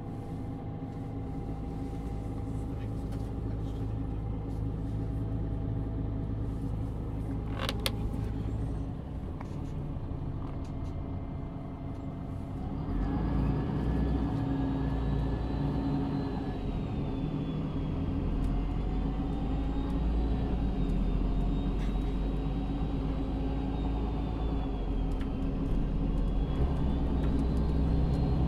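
MAN Lion's City (NÜ 323) city bus heard from the passenger cabin, its diesel engine running low and steady, with a sharp click about eight seconds in. About halfway through the engine gets louder as the bus pulls away, and a high whine rises and falls with its speed.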